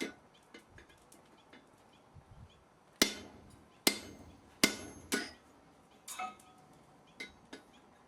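Blacksmith's hammer striking metal on an anvil: a sharp blow at the start, then four heavy strikes about a second apart from about three seconds in, followed by a few lighter taps, some leaving a short metallic ring.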